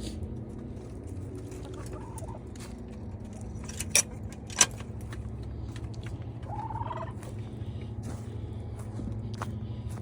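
Chickens clucking softly, with one short rising call about two-thirds of the way through, over a steady low hum. Two sharp clicks come about four seconds in, half a second apart, and are the loudest sounds.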